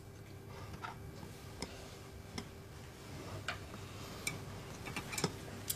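Light clicks and taps of chopsticks and tableware during a meal, scattered about once every second, over a faint steady hum of room tone.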